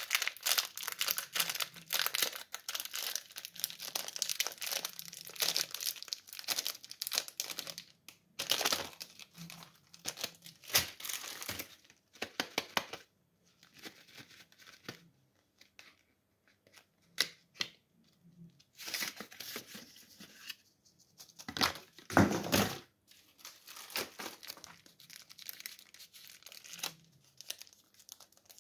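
Candy wrappers being crinkled and torn open by hand: dense, continuous crackling of plastic film for the first several seconds, then shorter bursts of rustling and tearing separated by brief pauses, with the loudest burst a little past the middle.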